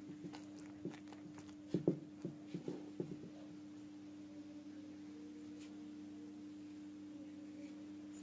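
Spatula scraping and tapping against a stainless steel mixing bowl while stirring flour and egg into dough: a run of scrapes and knocks in the first three seconds, the loudest about two seconds in. A steady low hum lies underneath.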